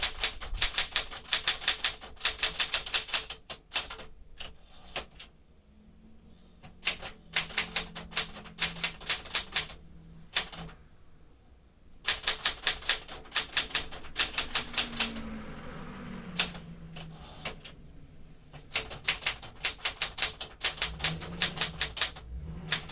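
Keystrokes of a 1973 Smith-Corona Sterling manual typewriter, typed in quick runs of several strikes a second with a few short pauses, its touch control set to a lighter typing action. Around the middle, a brief smeared sliding sound fits a carriage return.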